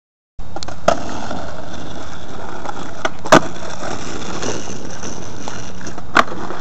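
Skateboard wheels rolling steadily on pavement, cutting in abruptly just after the start, with three sharp clacks, the loudest about three seconds in.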